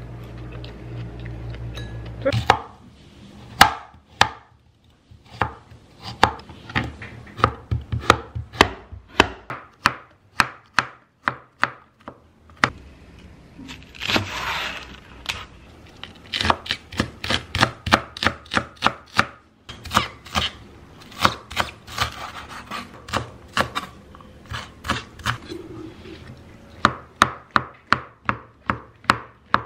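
A kitchen knife chopping green onion and shiitake mushrooms on a wooden cutting board: quick runs of sharp knocks with short pauses between them. The chopping starts about two seconds in, after a steady low hum.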